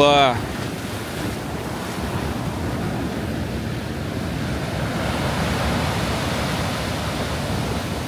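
Storm waves on the Black Sea breaking and rushing in foam below a pier: a steady surging wash that grows louder about five seconds in as a big wave comes through.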